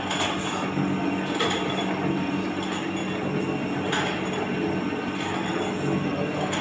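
Tinytech screw oil expeller running steadily with a hum as it presses mustard seed. A few sharp clicks come about half a second, a second and a half, and four seconds in.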